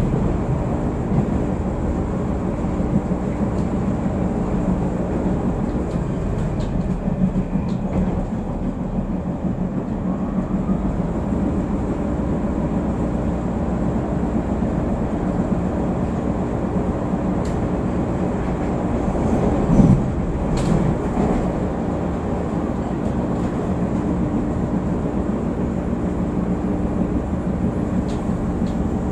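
Steady running noise heard from inside a moving CTA Yellow Line rapid-transit car at speed, with a brief louder clunk about two-thirds of the way through.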